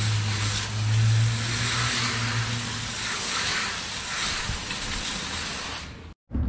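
A wheel being washed: a steady hiss of spray and scrubbing over a low motor hum that fades out about two and a half seconds in.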